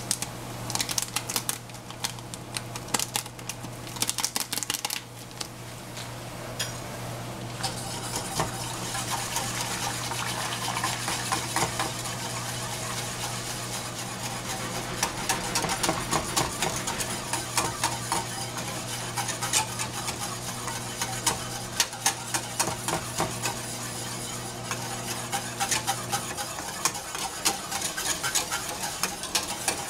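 Wire balloon whisk beating milk in a stainless steel saucepan, a fast, steady clatter of the wires against the pan, stirring in yogurt starter. It is preceded in the first seconds by scattered taps and clicks as the starter packet is emptied into the pan.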